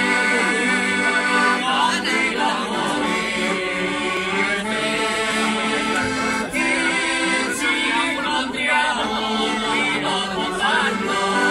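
Accordion playing sustained chords while men sing together in harmony.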